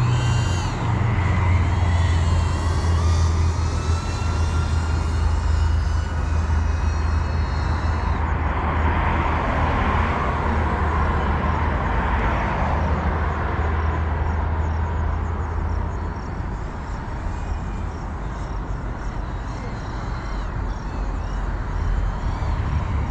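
GEPRC CineLog 35 FPV drone's motors whining, the pitch sliding up and down with the throttle over the first several seconds, then a broader rushing swell around the middle. A steady low rumble runs underneath.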